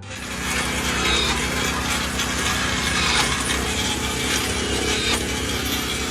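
A loud, steady mechanical grinding or cutting noise from a power tool or machine, with a rapid low pulsing underneath; it starts abruptly.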